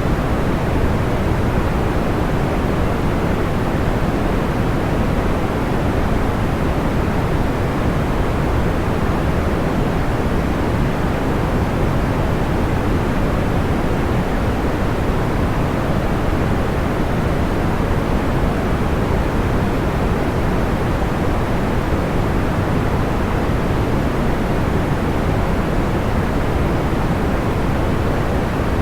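Steady, soft white noise weighted toward the low end, unchanging throughout, with no separate crackles or pops standing out.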